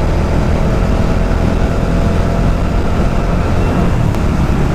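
Motorcycle cruising at a steady speed: the engine runs evenly under a heavy, steady wind rumble on the rider's microphone.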